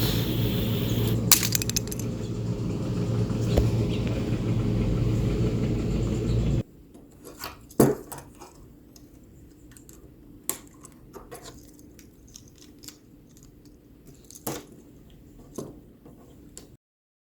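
A loud, steady rumble with a low hum that cuts off suddenly about six and a half seconds in, followed by scattered light clicks and clinks of small objects being handled.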